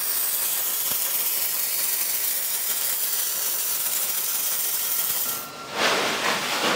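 MIG welder laying a bead along a steel seam: a steady crackling arc hiss that stops about five seconds in, followed by a short burst of a different noise near the end.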